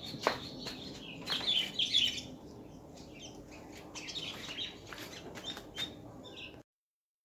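Small birds chirping in quick clusters, loudest about a second in and again around four seconds in, with a sharp click just after the start. The sound cuts off to silence near the end.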